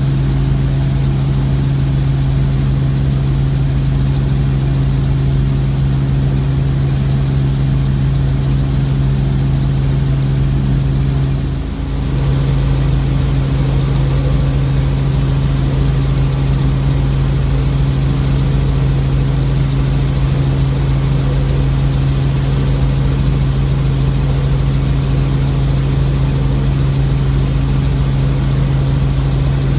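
Robinson R44 helicopter heard from inside the cabin in flight: a loud, steady drone of its six-cylinder Lycoming piston engine and rotors, dipping briefly about twelve seconds in.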